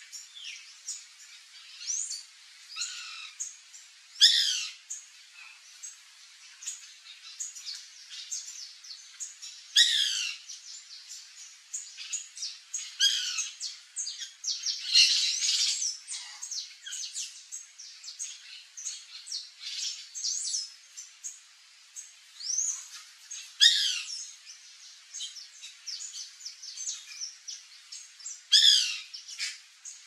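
White woodpeckers calling: a loud call every several seconds above a steady chatter of quicker, fainter chirps.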